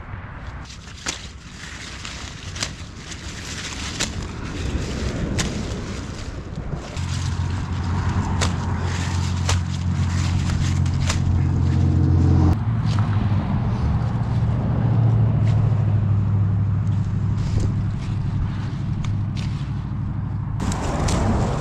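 A motor vehicle engine drones steadily at a low pitch, building from about seven seconds in and easing off near the end. Over it come repeated short snaps and rustles as curly dock stalks are broken off by hand.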